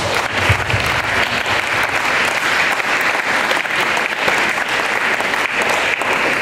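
A large audience of students applauding steadily, greeting a speaker who has just been introduced.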